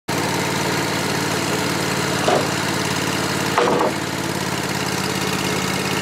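Wood-Mizer portable sawmill's engine idling steadily, with two short knocks about two and three and a half seconds in as a sawn board is handled on the mill bed.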